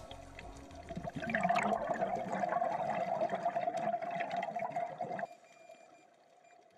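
Underwater sound from a scuba dive: a gurgling rush of a diver's exhaled regulator bubbles, starting about a second in and cutting off sharply a little after five seconds, over a steady hum and faint crackling.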